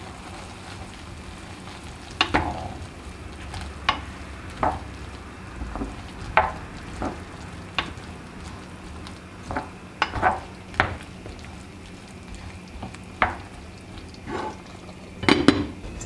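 A spoon stirring green beans and grated tomato in a pan, with about a dozen short scrapes and knocks against the pan, the loudest cluster near the end, over a low steady sizzle.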